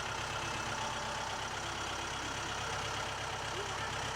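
An engine idling steadily with an even low pulse.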